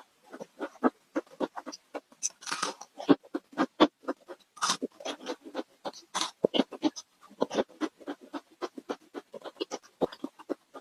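Close-miked chewing of crispy fried food: a dense, irregular run of crunches, with a few louder bites.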